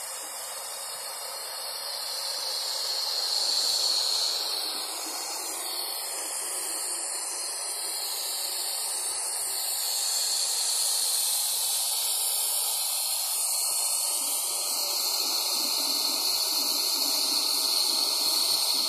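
Steady hiss of steam escaping from a meths-fired Gauge 3 live steam model of a Stanier 8F locomotive, swelling about four seconds in and growing louder again from about ten seconds.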